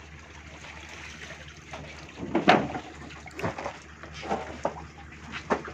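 Several knocks and thumps of containers and bags being handled, the loudest about two and a half seconds in, over a steady low hum.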